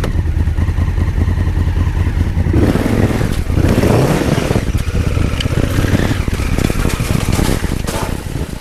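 Honda Africa Twin DCT's parallel-twin engine running, with the revs rising in two swells as the throttle is opened, about a third of the way in and again near two-thirds.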